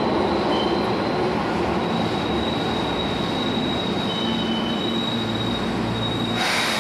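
Keihan 8000 series electric train running past along a station platform: a steady rumble of wheels and running gear, with a thin high wheel squeal held through the middle and a short hiss near the end.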